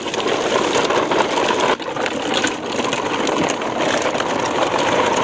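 Plastic toy dump-truck trailers loaded with toy vehicles rolling over gritty dirt ground: a continuous rattling grind of plastic wheels and loose toys, dipping briefly a couple of seconds in.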